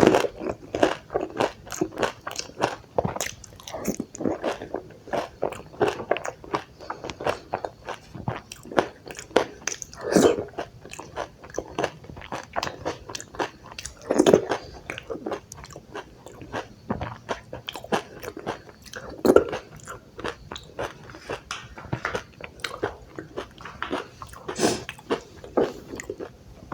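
Close-up eating sounds of dahi puri: crisp puri shells crunching between the teeth and wet chewing of the curd-filled puris, with a louder bite every few seconds.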